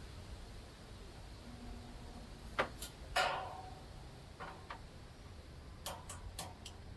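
A scattering of sharp clicks and light knocks from small hard objects being handled, about eight in all. One near the middle is followed by a short ring, and a quick cluster comes in the second half.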